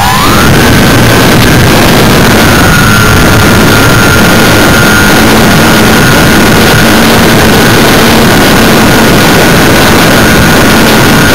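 Himax brushless outrunner motor and propeller of a Multiplex Space Scooter RC plane, heard from its onboard camera: a steady high whine that finishes climbing in pitch about half a second in, then holds with a slight dip at about two seconds. Loud rushing air and wind noise on the camera's microphone runs under it.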